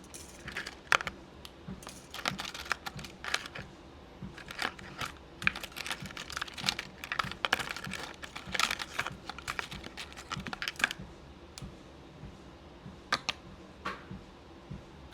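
Beads clicking and rattling as they are sorted by hand, in irregular flurries of light clicks that thin out over the last few seconds.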